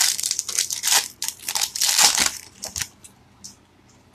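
A Yu-Gi-Oh booster pack's foil wrapper crinkling and tearing as it is opened. The crackling is dense for about two seconds, then a few last crackles, and it stops about three seconds in.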